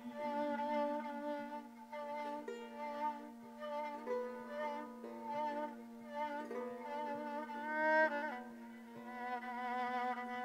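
Kamancha, the Azerbaijani bowed spike fiddle, playing an ornamented solo melody with sliding notes over a steady held low drone, as an instrumental interlude in a mugham performance.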